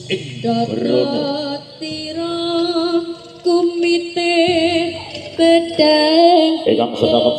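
A woman singing a Javanese jaranan-style song over music, holding long notes with a strong wavering vibrato and moving between pitches every second or so.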